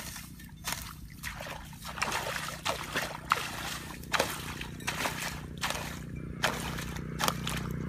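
A hoe chopping and scraping into waterlogged mud, with wet squelches and splashes of muddy water. There are about ten strokes, a little more than one a second.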